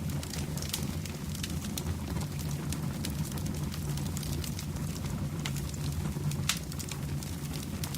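Wood fire in a fireplace crackling, with scattered sharp pops at irregular intervals, the loudest about six and a half seconds in, over a low steady hum.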